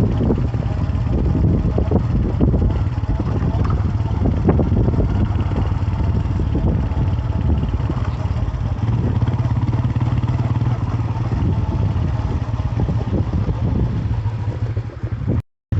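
Motorcycle engine running steadily while riding, with wind buffeting the microphone; the sound cuts out briefly near the end.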